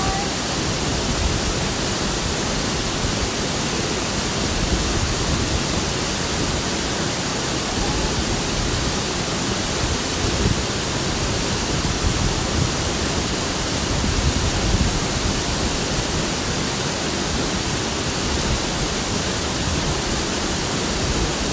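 Waterfall pouring into its plunge pool: a steady, even rush of water.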